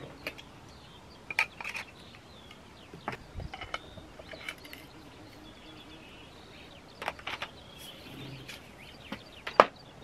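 Scattered clicks and knocks of plastic and metal as the hose, handle and steel extension tubes of an ash vacuum cleaner are handled and pushed together, the vacuum itself switched off; the loudest is a sharp click near the end. Birds chirp faintly in the background.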